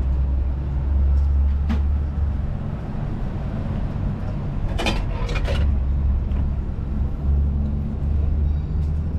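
Steady low rumble with a few short clicks and clacks, a cluster of them about five seconds in as the hinged metal flap of a vintage hot-noodle vending machine's delivery hatch is pushed open.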